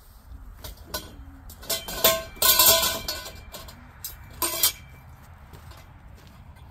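Steel tent-frame tubes clanking and ringing against each other as they are pulled from the shipping crate. The loudest clatter is about two to three seconds in, with one more clank about four and a half seconds in.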